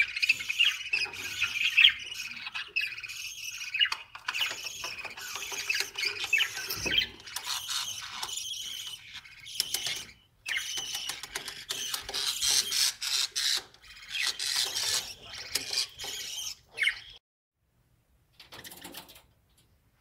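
Budgerigars chattering, a busy run of high chirps, warbles and clicks that cuts off suddenly about seventeen seconds in, with one short burst shortly after.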